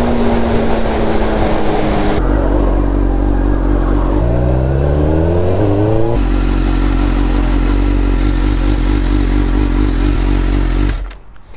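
Suzuki GSX-R600 inline-four engine heard from the rider's seat, running at speed with wind noise, then rising in pitch as it accelerates, then running steadily at low revs. The sound changes abruptly twice and cuts off near the end.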